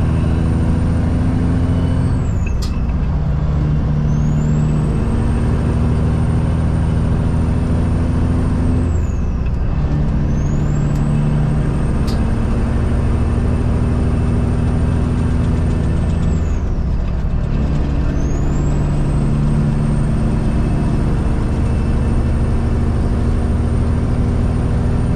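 Peterbilt 379 semi truck's diesel engine pulling up through the gears. The engine note drops at three shifts about seven seconds apart, and a high turbo whine falls away at each shift and climbs again as the revs build. There are two brief sharp clicks.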